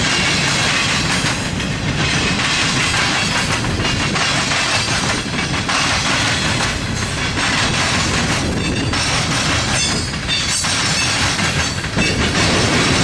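Freight train rolling past: steady, loud noise of steel wheels on the rails and the cars running by.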